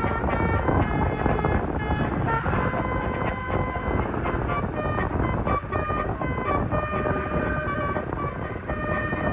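Indonesian bus telolet horn, a multi-tone musical horn, playing a tune of short notes that step up and down in pitch, over a steady low rumble.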